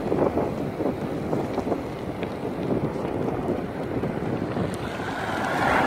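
Wind buffeting the microphone of a camera carried on a moving bicycle: an uneven, gusty rumble that grows louder near the end.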